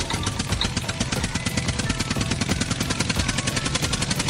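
Tractor engine chugging steadily, a rapid, even putt-putt.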